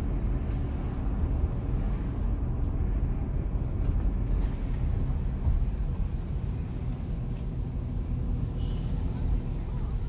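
Steady low rumble of a BMW X5 E53 running and moving, heard from inside the cabin.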